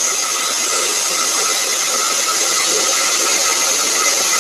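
Steady machine noise, a strong hiss with faint steady whining tones, from the hydraulic and ground-power equipment running an airliner's landing gear swing test as the main gear swings down on jacks.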